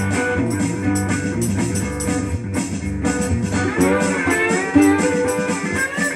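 Resonator guitar played slide-style in a blues groove, with notes gliding up and down in pitch about two-thirds of the way through.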